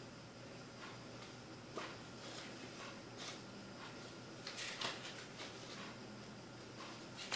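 Faint rustles and soft brushes of a CD booklet's glossy paper pages being turned by hand, a handful of short ones scattered through, the loudest near the end.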